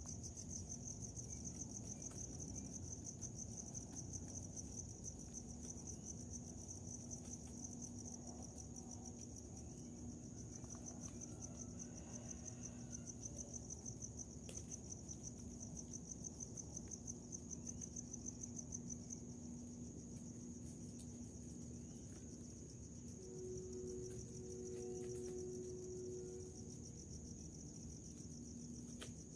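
Crickets trilling in a steady, fast-pulsing chorus. Underneath is a faint steady low hum, joined by a short higher tone near the end.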